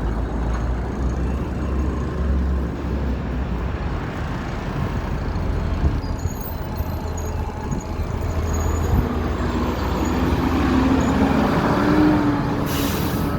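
City street traffic: a steady rumble of passing cars and heavy vehicles. About two-thirds of the way in, a large engine grows louder as it nears, and a short hiss sounds just before the end.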